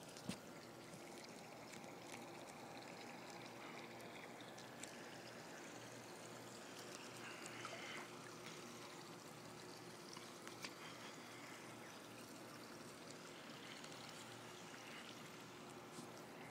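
Faint, muffled water noise from a phone microphone held underwater in a swimming pool: a steady hiss of moving water with scattered small clicks and a faint low hum underneath.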